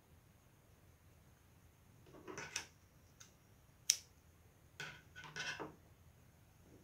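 Hands handling crochet thread and a small crocheted piece on a tabletop: soft rustling twice, with one sharp click near the middle.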